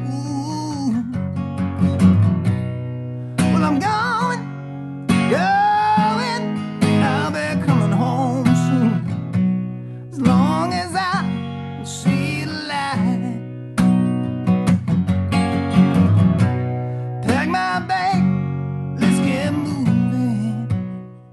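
Acoustic guitar strummed to accompany a solo singer, in phrases a few seconds long.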